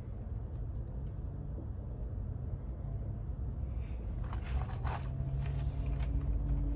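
A steady low rumble, with brief chewing and mouth sounds about four to five seconds in.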